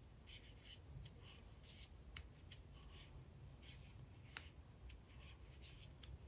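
Faint rustling of yarn and light ticking of a metal crochet hook as crochet stitches are worked, with two slightly sharper clicks about two and four seconds in.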